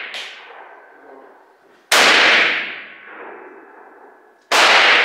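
Two gunshots about two and a half seconds apart, each fading away in a long echo. The echo of a shot just before is dying away at the start.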